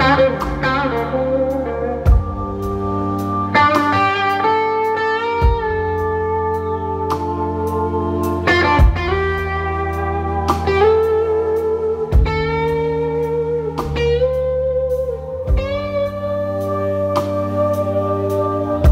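Live blues-rock electric guitar solo on a semi-hollow-body electric guitar: long held notes with wide vibrato and bends, over a held low bass and a drum kit with regular cymbal ticks and occasional heavy hits.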